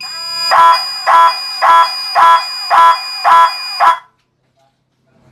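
Electric horn of a homemade motorcycle alarm sounding in pulses, about two a second, switched on and off by a flasher relay, then cutting off abruptly about four seconds in. It is set off by a jumper wire being plugged into the ignition connector to hot-wire the motorcycle while the alarm is armed.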